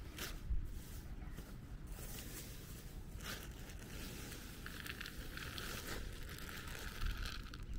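Rustling and crinkling handling noise, with a dull thump about half a second in and another near the end.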